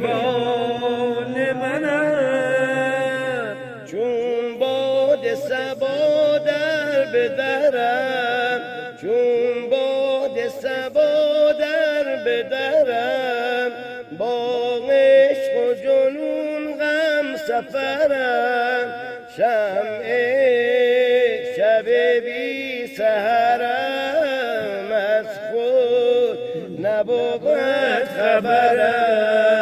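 Men's voices chanting a slow, continuous Persian devotional chant, the melody held and bending without pause.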